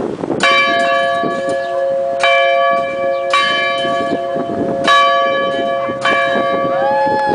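Heavy 640-pound cast-iron school bell from 1886, rung by its rope and struck five times at uneven intervals of one to two seconds. Each stroke rings on, and its deepest tone carries on under the next.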